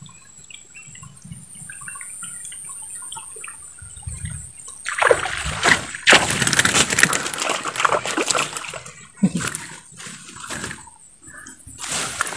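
Snakehead striking a topwater lure at the water's surface: a burst of loud splashing about five seconds in lasting several seconds, then a few shorter splashes as the fish strikes again.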